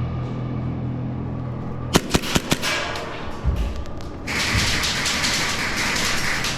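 Four quick airsoft pistol shots about two seconds in, sharp cracks fired within about half a second, over steady background music. From about four seconds in, a loud steady hiss joins the music.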